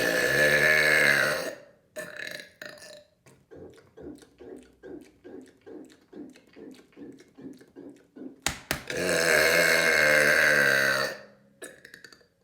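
A person's long, loud burps. The first carries on for about a second and a half, and another begins about nine seconds in and lasts a couple of seconds. Between them comes a run of short, quieter sounds, about two or three a second.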